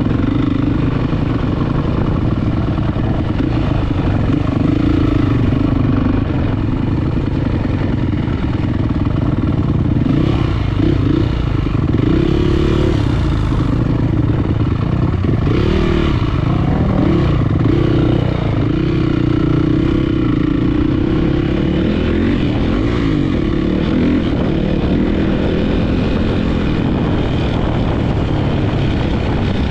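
Single-cylinder four-stroke 450cc dirt bike engine being ridden, its revs rising and falling again and again, with a run of quick rev swings between about ten and eighteen seconds in.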